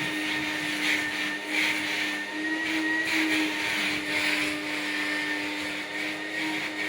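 Vacuum cleaner running with a steady whine, its hiss swelling and easing every second or so.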